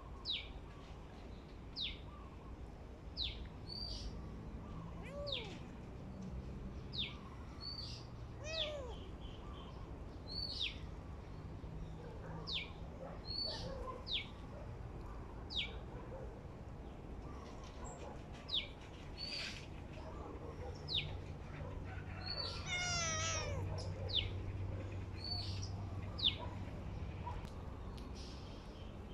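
A small bird repeats a short, high, downward-sliding chirp about every second and a half. A few lower sliding calls and one longer wavering call, about three-quarters of the way through, come from the kitten mewing as it eats.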